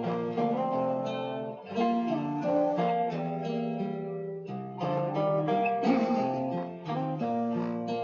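Instrumental music led by a plucked string instrument, playing a slow melody of ringing notes, with a brief lull about four seconds in.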